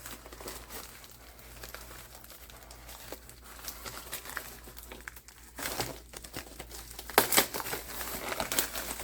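Parcel packaging being opened by hand: faint rustling at first, then louder crinkling and crackling from about halfway through, with one sharp click just after seven seconds.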